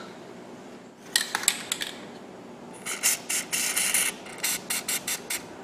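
Aerosol spray can with a straw nozzle spraying: one hiss of a little over a second, then a series of short puffs. A few short clicks come about a second in.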